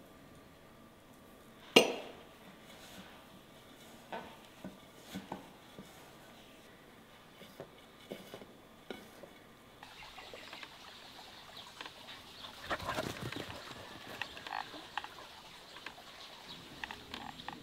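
Kitchen handling sounds of dishes and utensils: scattered clinks and knocks, with one sharp knock about two seconds in. After about ten seconds comes a denser stretch of clattering and rustling.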